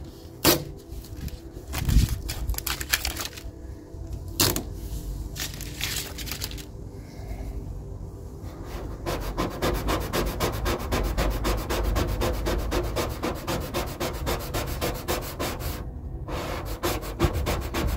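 Felt-edged squeegee rubbed over the transfer tape of a vinyl side-stripe decal to press it onto a car door. The first half has scattered rubbing strokes. From about halfway comes a fast, continuous run of short rubbing strokes, which stops shortly before the end.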